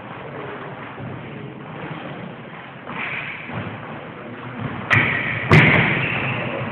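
Fencers' feet striking and stepping on a bare wooden floor during a smallsword bout, with two sharp, loud knocks about five seconds in.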